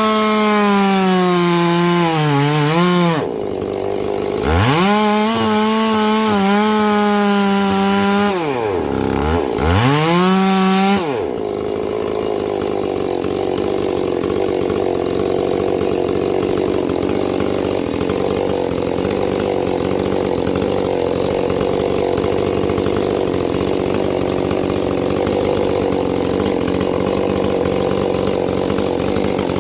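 A ported and decked Holzfforma G466 70cc chainsaw revs at high speed in three bursts, its pitch dipping and recovering. From about 11 seconds in it settles into a long, steady cut through wood.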